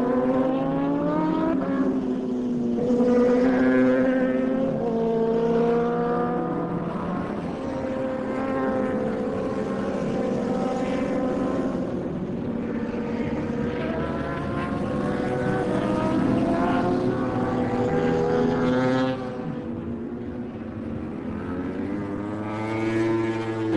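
Several superbike racing motorcycle engines at high revs, their pitch climbing through each gear and dropping at every shift as the bikes race by. The sound grows briefly quieter about three-quarters of the way through.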